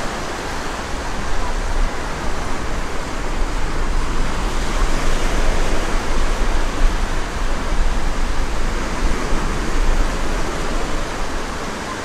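Small sea waves breaking and washing up the sand, a steady rushing hiss with a low rumble underneath.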